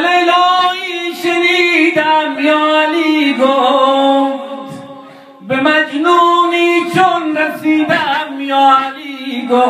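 A man chanting a Persian devotional poem unaccompanied, in two long melodic phrases with a short break about five seconds in.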